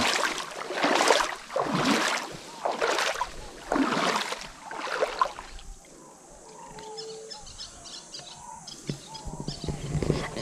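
Water splashing in rhythmic surges about once a second for the first five seconds, then stopping. Quieter river sound follows, with faint short bird chirps.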